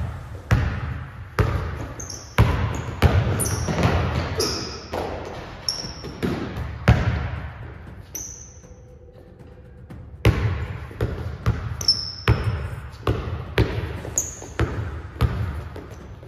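Basketball dribbled on an indoor court, bouncing about once or twice a second, with short high squeaks from sneakers on the floor. The bouncing stops for about two seconds around the middle, then starts again.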